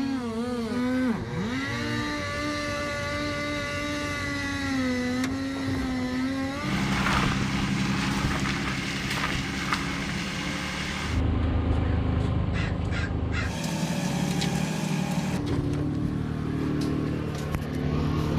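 Two-stroke chainsaw running at high revs, its pitch dipping and recovering as it bites into the wood, then settling at a lower, rougher pitch under heavier cutting load for the rest.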